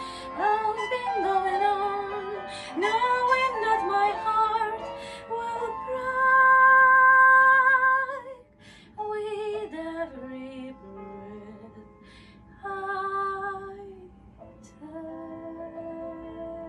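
A woman singing a slow ballad, drawing out notes with vibrato; about six seconds in she holds one long loud note, then carries on in softer, shorter phrases.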